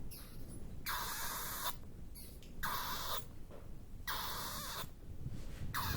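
Bats chittering: repeated hissy, high-pitched bursts of squeaks lasting under a second each, coming about every second and a half over a steady low rumble.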